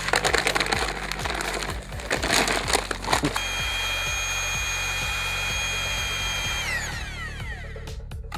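About three seconds of gritty scraping and rustling, then an electric drill with a mixing paddle running at a steady whine in a bucket of Type S mortar mix. The drill winds down near the end, its whine falling in pitch.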